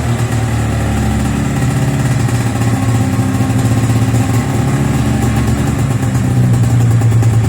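Taiga 500 snowmobile's two-cylinder two-stroke engine running at idle without the choke, its pitch dropping a little at the start and then holding steady. The snowmobile has come in sneezing and running on one cylinder, and the mechanic suspects an air leak.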